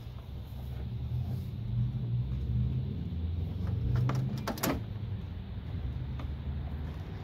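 Plastic car bumper cover being pushed and seated by hand, with a quick run of sharp plastic clicks and knocks about four seconds in, over a low rumble that swells and then eases off.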